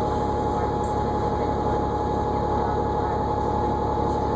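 Interior sound of a New Flyer D40LFR diesel transit bus under way: a steady engine and road rumble with a steady high-pitched whine held on top.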